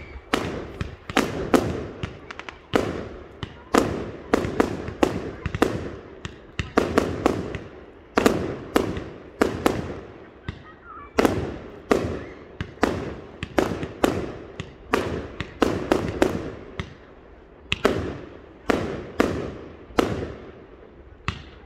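Fireworks display: aerial shells going off in a steady string of sharp bangs, about one or two a second, each one trailing off in an echo.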